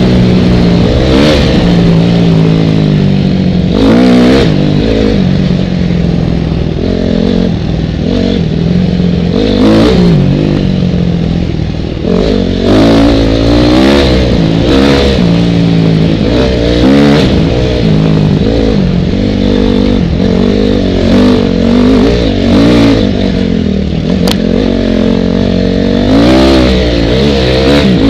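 2004 Honda CRF250R dirt bike's single-cylinder four-stroke engine revving under way, its pitch rising and falling over and over with throttle and gear changes.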